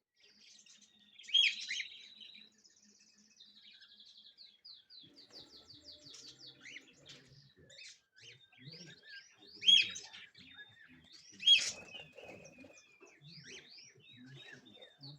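Small birds chirping: a quick buzzy trill about three and a half seconds in, then a steady run of rapid high chirps. Three loud sharp calls stand out, about a second in, near ten seconds and near twelve.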